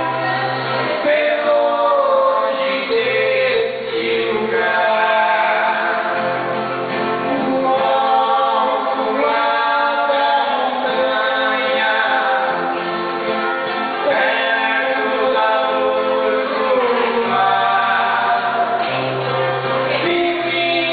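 Two men singing a song together in harmony into microphones, accompanied by strummed acoustic guitars with low bass notes underneath.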